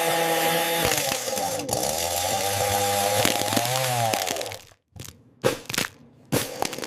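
AI-generated chainsaw running, its pitch wavering and dipping as the chain cuts into a sweet, then stopping about four and a half seconds in. Three short crunching bursts follow near the end.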